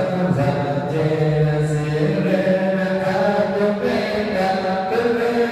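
Buddhist chanting: voices reciting from chant books in a steady, sustained drone, the pitch stepping up about two seconds in.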